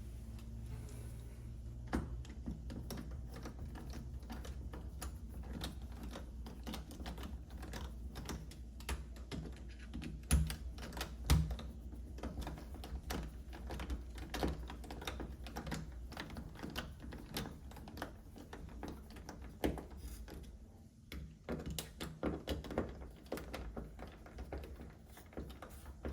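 Screws being driven into a new deadbolt lock, making dense, irregular small clicks and metallic taps, with a couple of louder knocks about ten and eleven seconds in.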